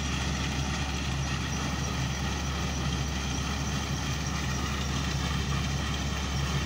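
Massey Ferguson MF 186 combine harvester running steadily while threshing wheat: an even mechanical drone of engine and threshing gear.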